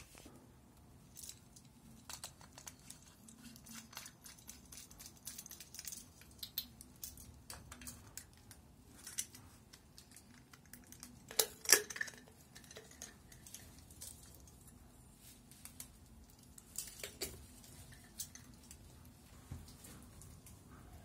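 Scattered small clicks, clinks and rustles of hands handling the metal fittings and chains of a brass Turkish mosaic hanging lamp, with one sharper clink about twelve seconds in.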